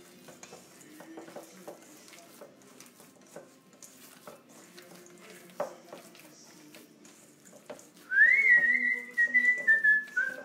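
Hands squishing and mixing a meatball mixture in a metal bowl, with faint soft clicks. About eight seconds in, a person starts whistling a few notes, a thin tune that rises and then steps slowly down in pitch.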